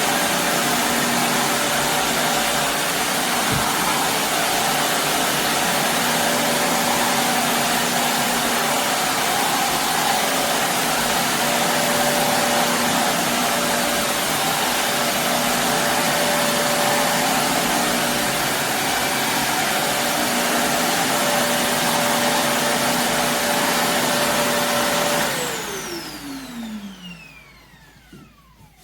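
Shark upright vacuum cleaner running steadily at full power over carpet, a constant rush of air with a steady motor whine. About 25 seconds in it is switched off, and the motor whine falls in pitch as it spins down.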